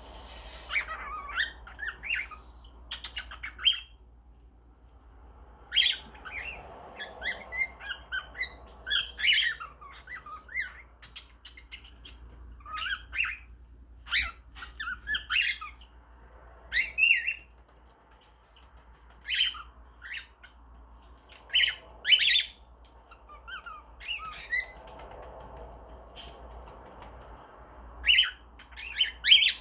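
Baby cockatiel chattering and chirping in short, irregular bursts with pauses between, mixed with its mimicked kissing sounds.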